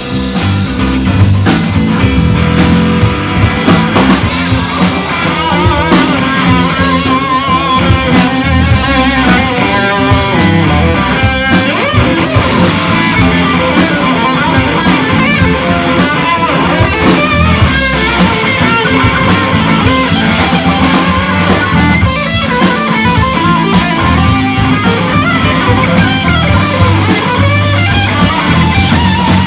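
Rock music without vocals: an instrumental passage with a guitar lead over bass and drum kit.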